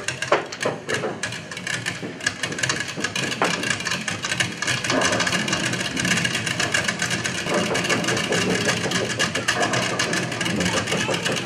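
Storm sound effect played over the stage: a dense, rattling patter of many small impacts, like hail, growing louder and steadier about five seconds in.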